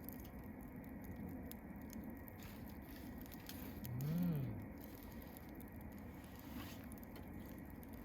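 Wood campfire crackling with scattered small pops over a steady hiss. About four seconds in, a brief low tone rises and falls once in pitch.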